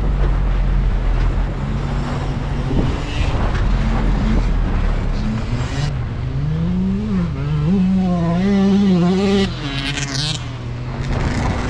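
GMC Canyon pickup's engine pulling through soft sand in four-wheel-drive high. Its pitch climbs and wavers up and down as the throttle varies over a few seconds past the middle, then settles back to a steady drone.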